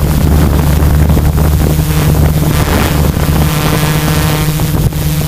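Multirotor drone's electric motors and propellers running steadily in a hover, a loud even hum heard through the drone's own onboard camera, with wind rushing over the microphone.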